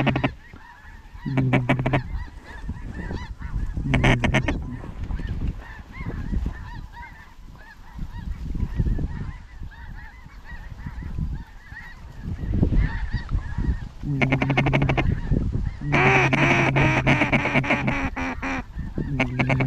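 Waterfowl calling in loud bursts of honking quacks, with a long run of rapid calls near the end, over the fainter chatter of a large flock; a low wind rumble on the microphone.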